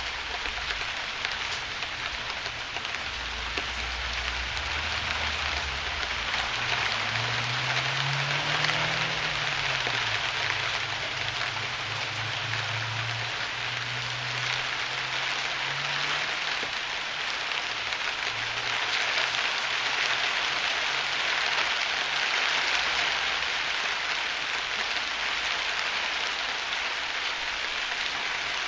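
Heavy rain falling steadily, a dense even hiss of drops. Through the middle a faint low hum comes in under it, rising and falling in pitch once before settling.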